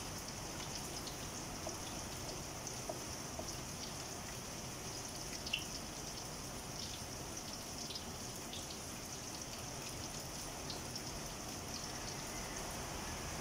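Steady hiss of fishballs frying in oil in a steel wok, mixed with rain falling, with a few light taps of a wooden spatula against the wok.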